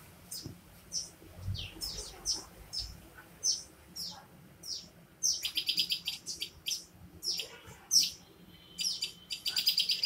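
Small songbird calling: short, high, downward-slurred chirps repeated about every half second, broken twice (around the middle and near the end) by quick rapid-fire runs of notes.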